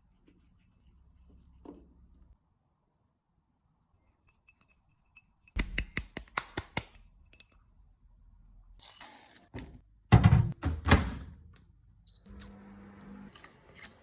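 Kitchen handling noises: a quick run of sharp clicks about halfway in, then a few heavier knocks and clatter, like utensils and containers being set down. A short, steady low hum follows near the end.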